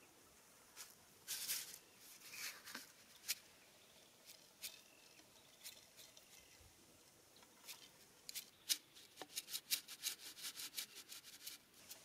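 Grain being shaken out of a plastic bottle onto a wooden plank, with faint scattered clicks and rustles. A quick run of small clicks follows in the last few seconds.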